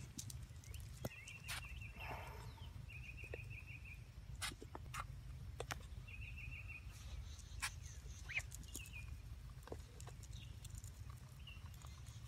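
Goslings peeping, several short trilled calls, while sharp clicks come from their bills pecking at a plastic bottle of feed. A steady low rumble runs underneath.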